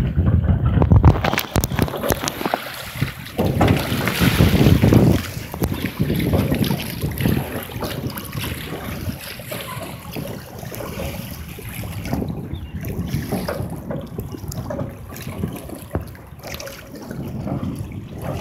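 Wind buffeting the microphone in gusts over choppy water splashing and lapping. It is strongest near the start and about four to five seconds in, then settles to a steadier rush.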